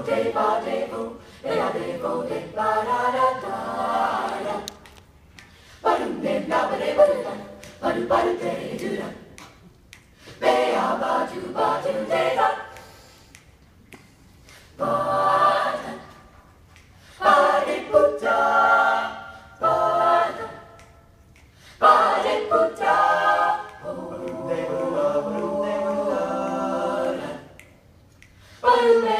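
High-school vocal jazz ensemble singing a cappella in close harmony, in short phrases broken by brief pauses.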